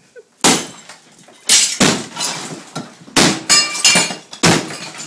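Sledgehammer blows smashing into an interior wall during demolition: about seven heavy strikes in quick succession, some trailed by a brief clatter and a few with a short ringing note.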